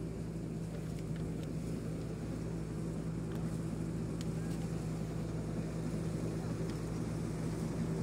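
An engine running steadily at an even pitch: a constant low drone.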